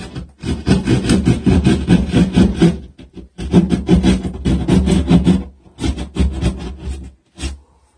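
A hand drywall saw sawing through gypsum drywall in quick back-and-forth strokes. It breaks off briefly twice and stops just before the end.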